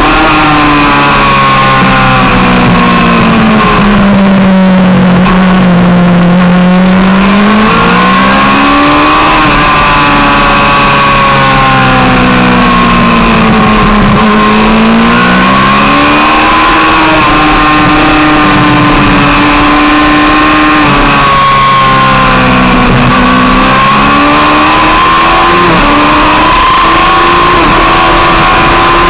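Yamaha YZF-R1 inline-four engine at racing speed, heard from a camera mounted on the bike. The engine note drops away as it brakes for corners (about two seconds in, around fourteen seconds and again around twenty-two seconds), then climbs again hard through the gears, over steady wind and road noise.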